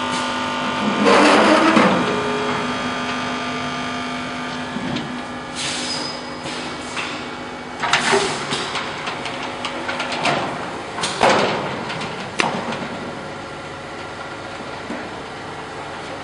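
ZV-720 powder packing machine running: a steady machine hum with a short rush of noise every two to three seconds as it cycles.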